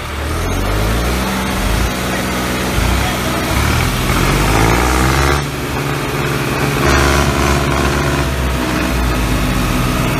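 Tractor engine sound effect running and revving, its pitch rising and falling several times.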